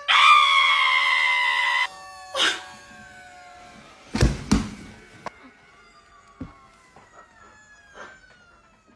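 A loud, high, shrill scream held for about two seconds, then a couple of heavy thumps about four seconds in, with only faint clicks after them.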